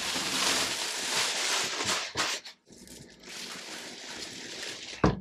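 Packaging being handled and pulled open: rustling and scraping in two stretches with a short break in the middle, then a sharp knock near the end.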